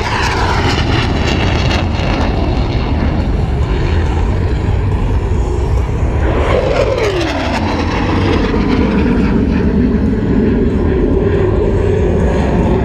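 Blue Angels F/A-18 Hornet jets flying past: a loud jet roar over a steady low rumble, its pitch dropping as one passes at the start and again as another goes by about six seconds in.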